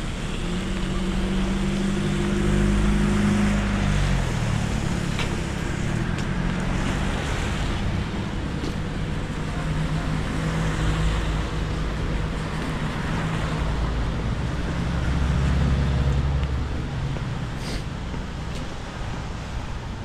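Motor vehicle engine and road noise: a low steady hum whose pitch drops about four seconds in, then holds steady.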